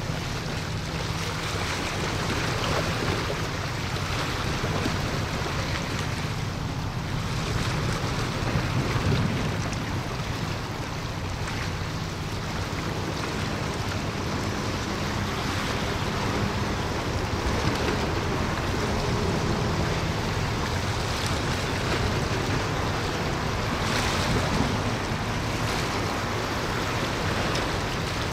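Wind buffeting the microphone over rushing water, with a steady low engine hum underneath; the noise swells and eases in gusts.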